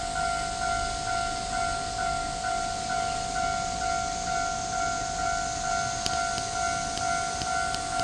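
Japanese railway level-crossing warning bell ringing, an electronic ding repeating about twice a second, the signal that a train is approaching the crossing.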